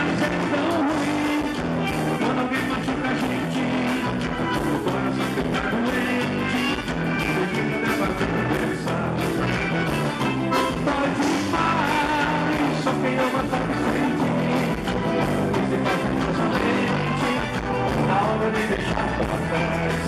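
Live band music amplified over a PA, with a steady beat from drums and bass, electric guitar, accordion and keyboard, and a voice singing over it.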